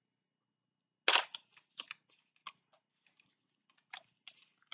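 Product packaging being handled: a crinkly crunch about a second in, then scattered small clicks and crackles.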